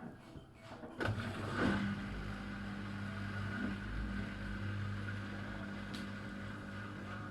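Miele W1 washing machine running just before its spin: it starts up suddenly about a second in, then holds a steady hum. This is the strange pre-spin noise, which a service technician put down to the machine not standing level on its feet.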